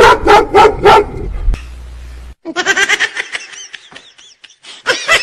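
A dog barking: four loud barks in about the first second, then a quick run of shorter, higher yips, with more barking near the end.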